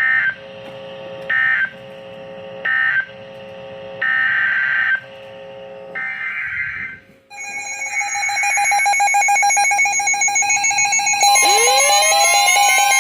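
NOAA Weather Radio EAS/SAME digital data bursts heard through a weather radio receiver: three short end-of-message bursts about a second and a half apart, then two longer header bursts, then a steady alert tone begins about seven seconds in. From about eleven seconds in, rising sweeping tones layer over the alert tone.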